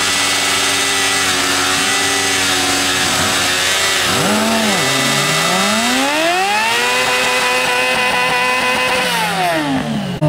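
Sport motorcycle engine revving hard during a burnout, its rear tyre spinning on asphalt. The revs dip, then climb steeply about halfway through, hold high for a couple of seconds and fall away near the end.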